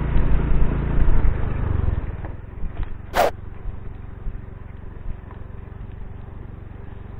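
Honda motorcycle engine running at low speed, with a loud low rumble for the first two seconds, then a quieter steady hum. A single short sharp sound about three seconds in.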